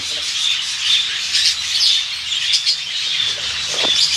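Birds chirping and squawking without a break, short high-pitched calls repeating over one another.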